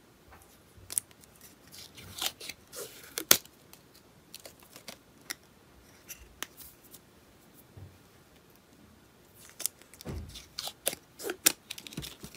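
Protective plastic film being peeled off a clear acrylic panel by hand: scattered crackles and fingernail clicks, with a sharp click about three seconds in and a busier run of crackling in the last few seconds.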